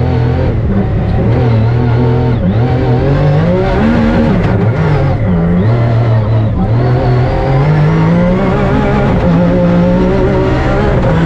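Rally car engine under hard acceleration, its pitch climbing and then dropping back at gear changes several times.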